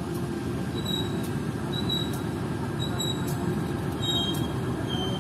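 KAI CC 201 diesel-electric locomotive running as it moves a string of freight wagons past, a steady low rumble of engine and rolling wheels on the track. Short high squeals come through about once a second.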